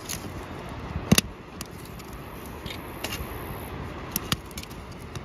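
Small campfire of split kindling burning in a steel fire ring: a steady rush with scattered sharp crackling pops, the loudest about a second in.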